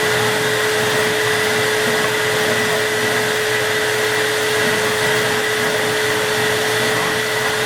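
Vacuum cleaner running steadily: a constant rush of air under a steady motor whine.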